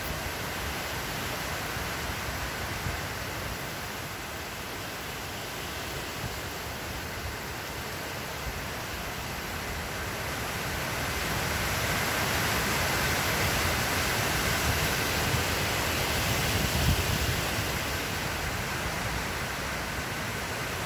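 Wind noise on the microphone outdoors: a steady rushing hiss with an uneven low rumble, growing louder for several seconds past the middle.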